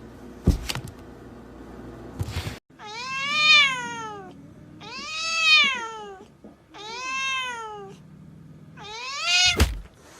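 A cat meowing four times. Each meow is long and drawn out, rising and then falling in pitch. A dull thud comes early on, and a sharp knock lands at the end of the last meow.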